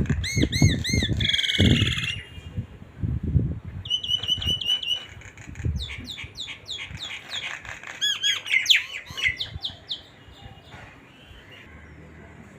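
Several birds calling and chirping: repeated arched chirps, a rapid trill, then a run of quick down-slurred notes, with low thumps in the first few seconds. The calls die away after about ten seconds.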